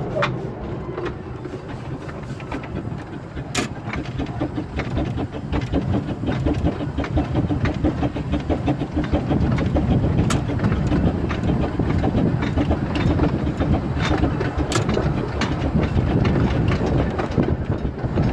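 Narrow-gauge Bagnall steam locomotive running along the line, heard from its footplate: a busy rhythmic clatter of exhaust beats, motion and wheels on the rails, getting a little louder about a third of the way in, with a few sharp metallic clicks.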